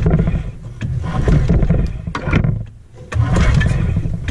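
Ski-Doo Formula 500 snowmobile's two-stroke engine being pull-started and firing, catching in three short rough bursts before cutting off suddenly near the end. It is firing on stale, varnished gas after sitting for years.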